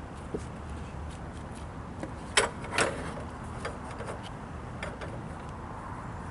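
A few sharp knocks and clicks, two louder ones close together about two and a half seconds in, over a low steady background rumble.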